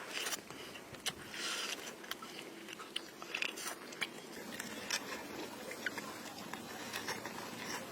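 A person biting and chewing spare ribs close to the microphone: irregular wet clicks and short crunchy bites.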